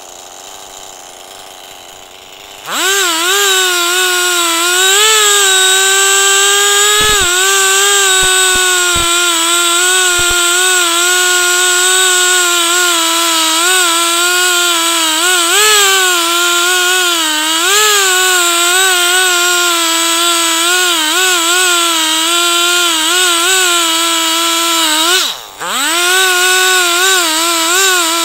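Chainsaw mounted in a chainsaw mill, throttling up to a loud, high running pitch about three seconds in and cutting along a log, its pitch wavering up and down under load. Near the end the pitch and level drop for a moment as the throttle eases, then climb straight back.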